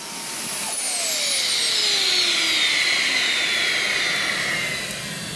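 Model gas turbine jet engine spooling down after its flame has blown out: a high whine that starts to fall in pitch about a second in and keeps sliding down steadily, over a rush of air.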